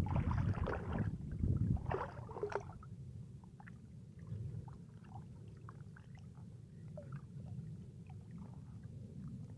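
Hooked fish splashing and thrashing at the surface as a handline is hauled in, loudest over the first few seconds. This settles into a steady low rumble of water against the boat with small scattered ticks.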